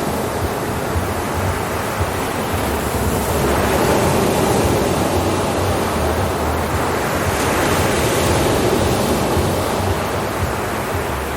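Ocean waves breaking and washing on a shore: a continuous surf rush that swells and eases slowly, louder around a third and two thirds of the way through.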